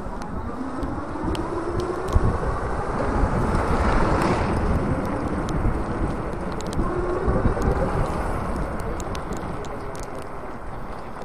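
Riding an electric bike on a road: wind buffeting the microphone over tyre rumble, with a faint motor whine that rises in pitch as the bike speeds up over the first few seconds.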